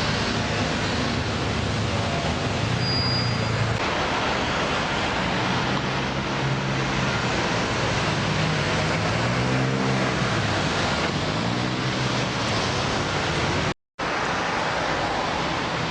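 Busy road traffic at a large roundabout: a steady wash of engine and tyre noise, with vehicle engines rising and falling in pitch as they pull away and pass. The sound cuts out for a split second near the end.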